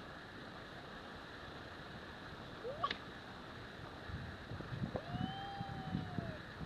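Two cats, a Scottish Fold and a Singapura, in a fighting standoff: a short rising cat call about two and a half seconds in, then a drawn-out threat yowl that rises and falls over about a second and a half, over a low, irregular growl.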